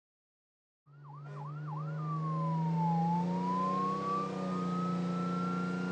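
Ambulance siren with a steady low engine hum beneath it, starting about a second in: three quick yelps, then one slow wail that falls and climbs back up.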